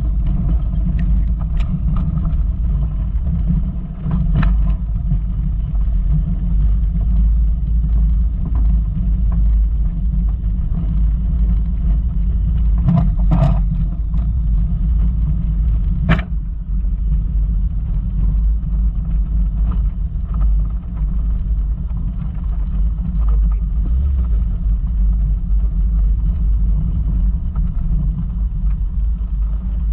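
Volkswagen Golf Mk2 driving over a rough off-road track: a steady low rumble of engine and tyres, with a few sharp knocks about four, thirteen and sixteen seconds in.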